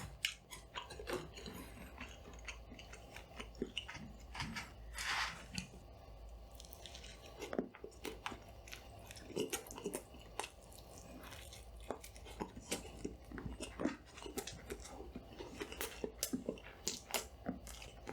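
Close-miked eating: chewing and biting, with crunches and many short wet mouth clicks, and a brief louder rushing sound about five seconds in. A faint steady low hum from the added studio lighting runs underneath.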